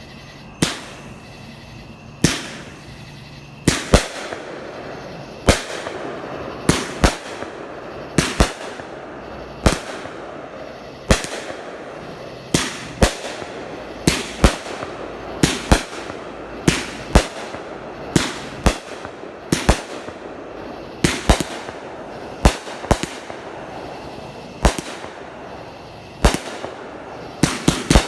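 Fireworks going off: a long run of sharp bangs, one or two a second at irregular intervals, over a steady crackle, ending in a quick rattle of small pops.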